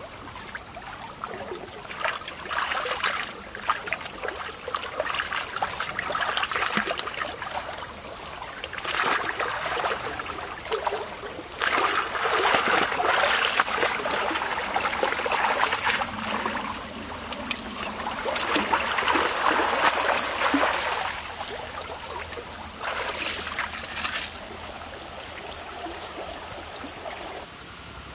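Water splashing and sloshing in irregular bursts as hands scrub and dunk a plucked whole chicken in a shallow stream, over the stream's steady flow. A thin, steady high-pitched whine runs underneath and stops shortly before the end.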